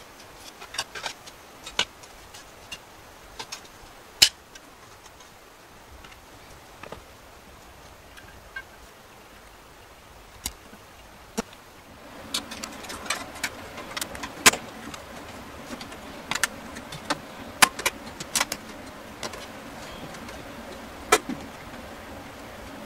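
Irregular sharp clicks and taps of computer hardware being handled during a PC build, a few a second at times. About halfway through, a faint steady hum and hiss come in under them.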